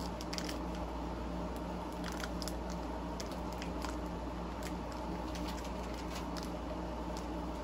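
Faint scattered clicks and rustles of trading cards and a booster-pack wrapper being handled, over a steady low hum.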